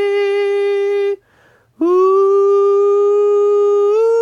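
A woman's voice singing unaccompanied, holding long steady notes. She breaks off briefly about a second in, then holds another note that steps up slightly near the end.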